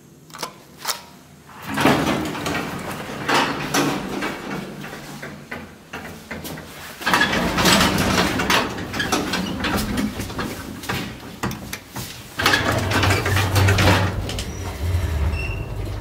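Old KMZ passenger lift (1996, 1 m/s) at work: a few sharp clicks, then its sliding doors rattling and clattering as they move, followed by a low steady hum with rattling as the lift machinery runs.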